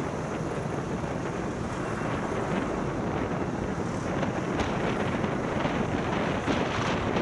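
Wind rushing steadily over the microphone of a moving vehicle, with road and traffic noise beneath.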